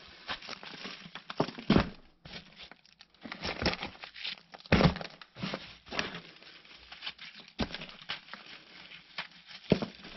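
Hands rustling and crumpling through damp worm-bin bedding of shredded paper, cardboard, coffee grounds and eggshells, making irregular crackles, with a few louder scrapes about two and five seconds in and again near the end.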